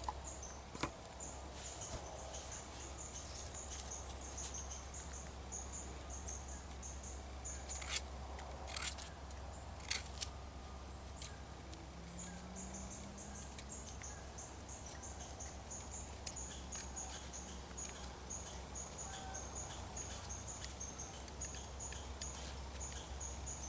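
Insects chirping steadily in rapid high pulses, with a few short scrapes of a knife blade shaving a stick being whittled, clustered about eight to eleven seconds in.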